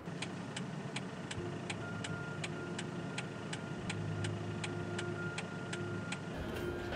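A car's turn-signal indicator ticking evenly, about two to three ticks a second, over the low hum of the car's cabin; the ticking stops near the end.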